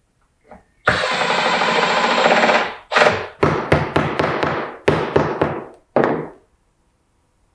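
Cordless impact driver driving screws through a Blum hinge mounting plate into a cabinet side: one sustained run of rapid hammering, then a string of short bursts as the screws seat.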